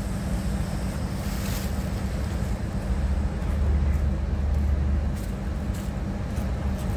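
Diesel engine of a narrow-gauge railbus idling with a steady low rumble, swelling a little for a couple of seconds around the middle.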